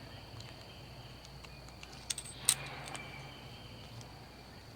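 Light handling clicks of a brass hose-repair fitting as it is pushed into a garden hose end. The loudest click comes about two and a half seconds in. A steady high insect trill runs underneath.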